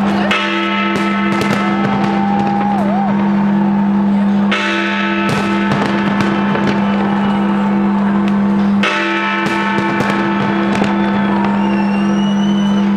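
Fireworks bursting with scattered cracks and crackles over loud music with long held chords that change about every four seconds.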